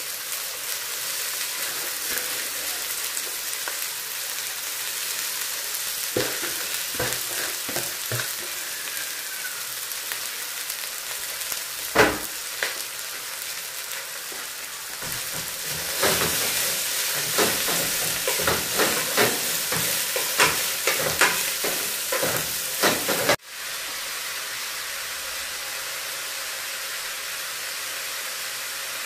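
Chopped kales sizzling in hot oil with onions in a frying pan, a steady hiss. A cooking utensil knocks and scrapes against the pan as the greens are stirred, with one sharp knock about twelve seconds in and a busy spell of stirring clatter a few seconds later, which stops suddenly.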